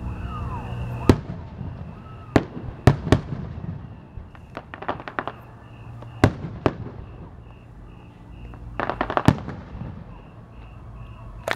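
Aerial fireworks display: shells bursting in a string of sharp bangs, about eight in all, with two runs of rapid crackling, one around the middle and one near the end. A faint high chirp repeats steadily underneath.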